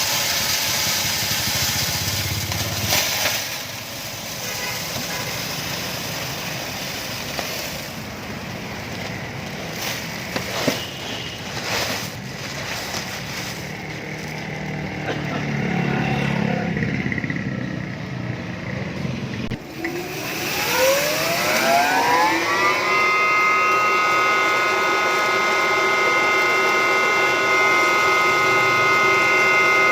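FFC-45 disk mill running with a noisy mechanical clatter and a few knocks, then after a sudden break spinning up: a whine rising in pitch over about three seconds that levels off into a steady running tone.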